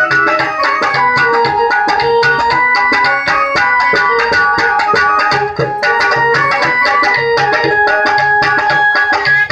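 Instrumental passage of a Hindi devotional bhajan: an electronic keyboard plays a sustained stepping melody over a steady hand-played dholak rhythm.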